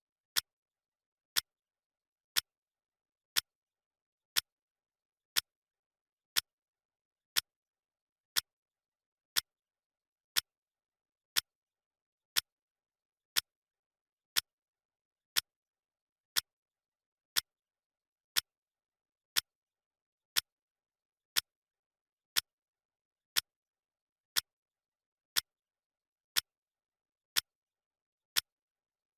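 Clock-ticking sound effect: one short, sharp tick every second, evenly spaced, with silence between the ticks.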